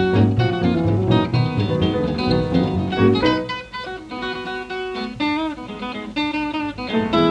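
Small-group hot jazz from a 1934 78 rpm record: quick plucked guitar notes over a steady low beat. About three seconds in it drops to quieter held notes with a wavering pitch, and the full band comes back near the end.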